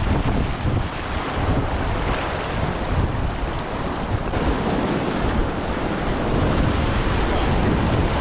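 Fast high-water river rapids rushing and churning around a raft, a steady dense roar heard from a camera on the boat, with wind buffeting the microphone. It grows a little louder about six seconds in as the raft enters rougher whitewater.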